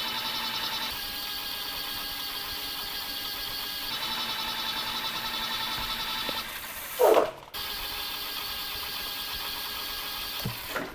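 Bafang M620 mid-drive e-bike motor running on the thumb throttle, a steady mechanical whine with several high tones that shifts a little a few times. About seven seconds in there is a brief loud burst and a moment's break, and the motor stops near the end.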